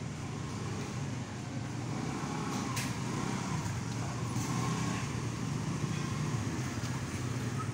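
Steady hum of street traffic, motor vehicle engines running.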